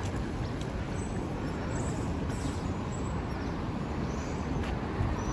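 Steady low rumble of city road traffic, with a few faint, short high chirps now and then.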